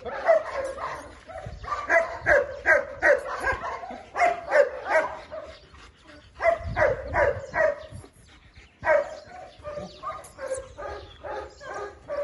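German Shepherds barking in quick runs of several barks a second. There is a brief lull about eight seconds in, then the barking picks up again.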